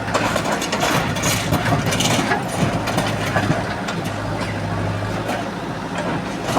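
Large truck engine idling with a steady low hum, with a clatter of knocks and bangs on top, loudest in the first couple of seconds.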